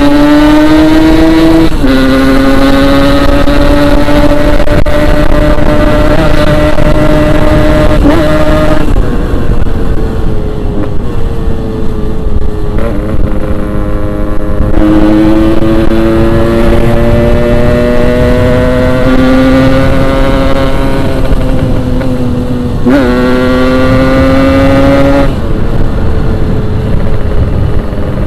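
Yamaha RX-King 135cc two-stroke single-cylinder motorcycle engine under hard acceleration, loud, its pitch climbing in each gear and dropping sharply at each upshift. About a third of the way in the throttle eases and the engine note turns duller for several seconds before it pulls hard again.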